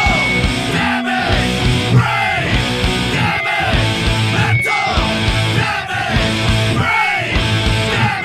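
Heavy metal/punk rock band playing at full volume: electric guitars, bass and drums, with a falling, sliding figure repeating about once a second.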